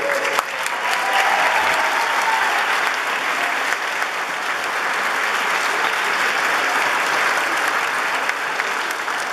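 Sustained applause in a hall, with the male choir on stage clapping along; it eases off a little near the end.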